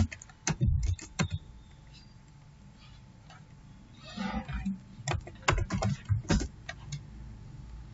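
Computer keyboard typing: a quick run of keystroke clicks about half a second in, then another run from about five to six and a half seconds in, with a quiet stretch between.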